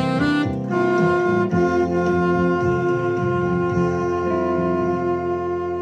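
Alto saxophone playing a short run of notes, then holding one long steady note over a backing accompaniment.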